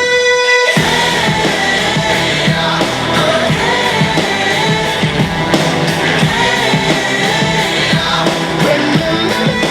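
Pop song with singing and a steady beat, played back through a Klipsch RSB-14 soundbar for a listening test; the bass drops out for the first second before the full mix comes in.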